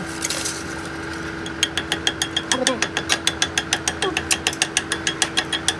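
Metal lathe running with a steady hum while turning down a welded repair on a truck transmission input shaft. From about a second and a half in, the cut adds a fast, even clicking, about seven clicks a second.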